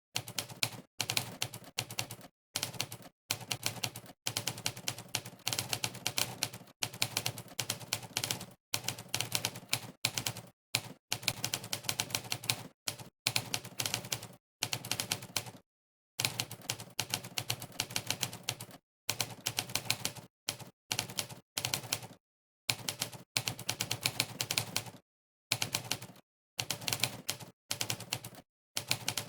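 Typing-test typewriter sound effect: a sampled typewriter key strike plays for each keystroke, in fast runs of clicks broken by short pauses of dead silence.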